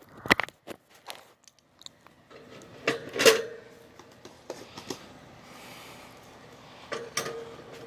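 Scattered clicks and knocks of objects being handled, with one louder knock a little over three seconds in and a faint hiss partway through.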